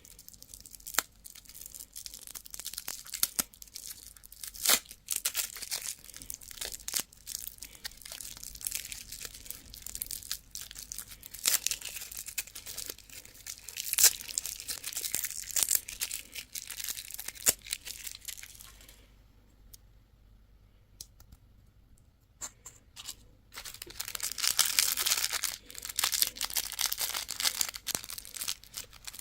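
Candy wrappers being handled, crinkled and torn open, with many sharp crackles and clicks. Past the middle the sound stops for about three seconds, then dense crinkling resumes.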